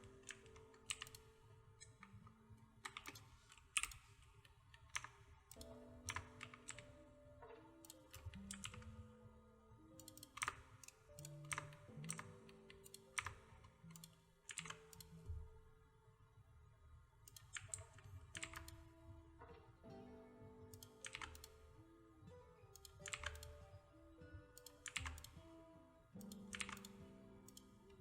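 Computer keyboard keys tapped at an irregular pace, used as software shortcuts, over quiet background music of soft held notes.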